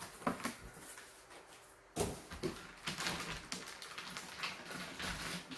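Cardboard box flaps and plastic packaging being handled while a boxed guitar amp is unpacked. A few light knocks and scrapes come first, then from about two seconds in a dense crinkling and rustling of plastic wrap as the amp is gripped and pulled.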